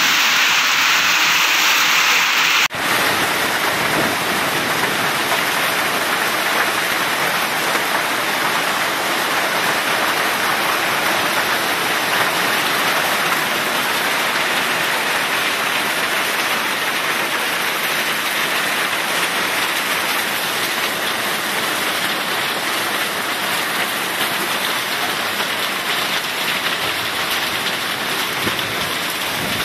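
Heavy rain mixed with hail pouring down onto the ground, a dense steady hiss, broken once by a brief drop about three seconds in.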